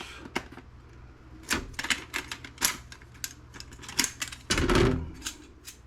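Sharp plastic clicks and clatter of RAM sticks being unlatched from their motherboard slots and pulled out, with a longer, louder rattle a little past the middle.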